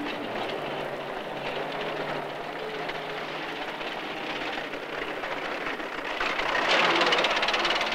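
A train running, a steady rushing noise that grows louder near the end.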